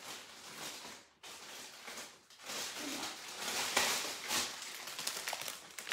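Rustling and crinkling of a plastic produce bag of grapes being handled, louder in the middle of the stretch.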